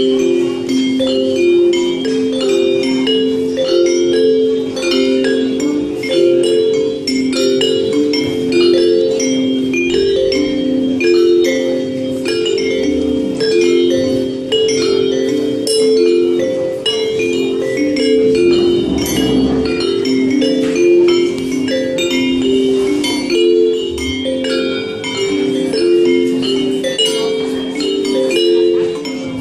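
Instrumental music: a steady, repeating pattern of short pitched notes in a bell-like, mallet-percussion timbre.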